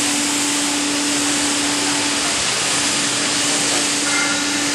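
Hydraulic power unit of a riveting machine running: a steady loud hiss with a constant humming tone underneath.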